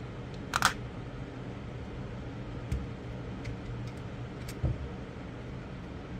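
Screwdriver working the screws of a GFCI outlet: a sharp double click about half a second in, then a few fainter clicks and taps, over a steady low hum.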